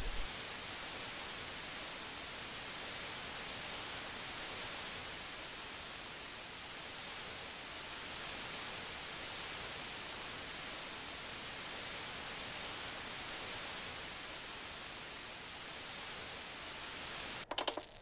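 Analog TV static: a steady, even white-noise hiss, the receiver noise of which a small part is the cosmic microwave background. Near the end comes a short, louder burst with a thin high-pitched whine, and then the sound cuts off.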